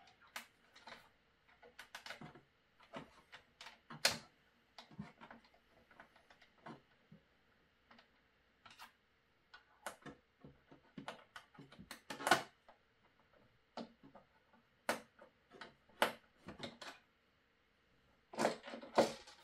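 Irregular clicks, taps and knocks of hard parts being handled on a 3D printer as a screwed-down packing part is worked loose, with a few sharper knocks standing out and a cluster near the end.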